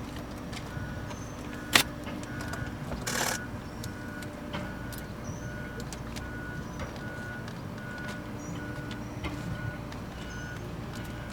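An electronic beeper sounding a short, evenly repeated beep about twice a second, over a steady low hum. A sharp click comes about two seconds in, a short rustle follows about a second later, and small birds chirp faintly.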